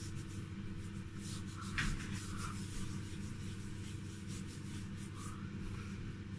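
Fingers scrubbing a baking soda and lemon paste over the skin of the face: faint, irregular rubbing strokes over a steady low hum.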